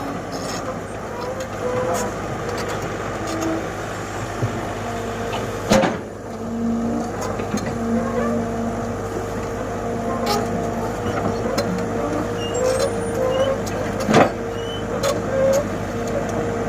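Komatsu hydraulic excavator's diesel engine running steadily, with a steady higher tone joining about five seconds in and two sharp knocks, one near six seconds and one near fourteen.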